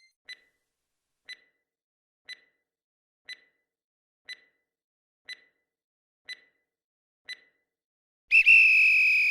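Quiz countdown timer sound effect: eight short beeps, one a second, then a much louder, longer tone near the end that marks the time for answering running out.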